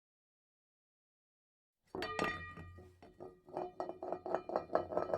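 Silence, then about two seconds in a sudden start of clinking, chime-like notes over a low hum, turning into a quick run of short strikes, about five a second.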